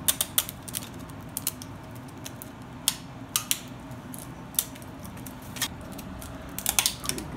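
Irregular sharp clicks and clinks of small hard objects being handled, with a quick run of them at the start and another near the end.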